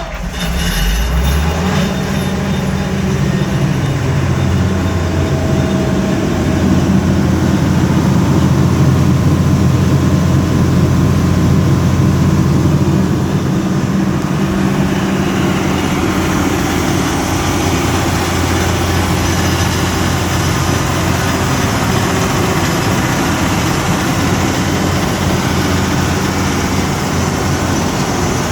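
1993 Onan 150DGFA 150 kW diesel generator set's engine starting up, rising to speed within the first couple of seconds, then running steadily at its governed speed.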